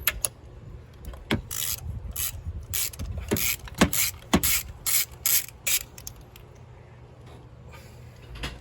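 Socket ratchet wrench clicking in about ten short back-and-forth strokes, roughly two a second, stopping about six seconds in: a spark plug being worked loose and out of the engine.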